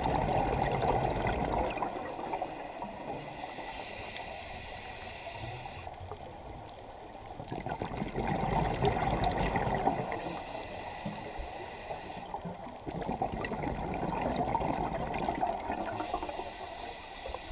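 Scuba diver's breathing through a regulator underwater: three loud bursts of exhaled bubbles gurgling past the camera, with quieter regulator hiss between them.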